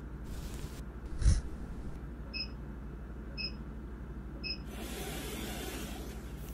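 Three short electronic beeps about a second apart from an IPL hair-removal handpiece as it fires, after a single sharp click about a second in. Near the end a soft rustling crackle as a rubber peel-off face mask is lifted away, over a steady low hum.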